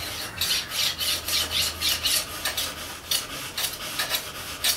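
Kitchen knife sawing back and forth through a compressed stack of pleated blackout blind, cutting it to length with short rasping strokes at about two to three a second.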